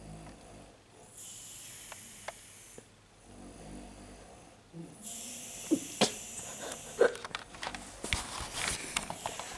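A woman snoring in her sleep: two snores about three seconds apart, each followed by a long hissing out-breath. Scattered sharp clicks and knocks come through the second half.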